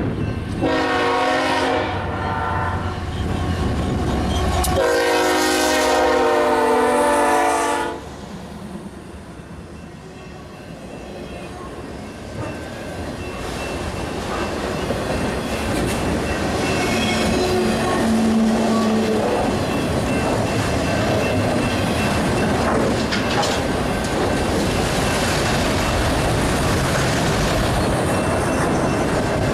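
Locomotive air horn of a GE ES44C4 sounding two blasts, a shorter one then a longer one about three seconds long. Then the freight train's wheels roll over the rail joints with a clickety-clack that grows louder as it comes on and passes.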